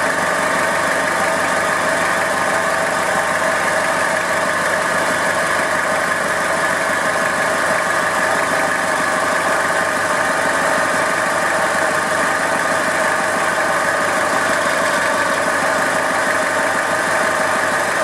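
Toyota Hilux 5L four-cylinder diesel engine idling steadily, carrying a noise that the owner suspects comes from the alternator.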